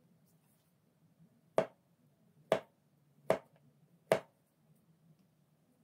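Chef's knife slicing a ripe banana into thin rounds, its edge knocking on a plastic cutting board four times, a little under a second apart.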